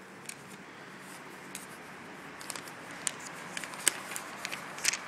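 Quiet room tone with a steady low hum and scattered light clicks and taps, which come more often in the second half, with the sharpest ones about four and five seconds in.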